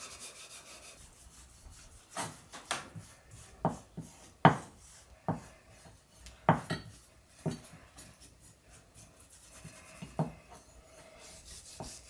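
Hand-forged Kent pattern axe chopping into wood: about a dozen sharp, irregular blows, the loudest about four and a half seconds in.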